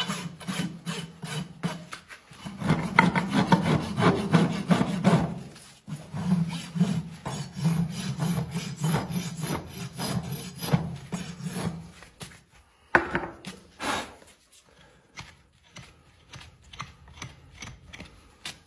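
Farrier's rasp filing a horse's hoof in rapid rasping strokes. The strokes are dense and loud through the middle, then become sparser and lighter toward the end.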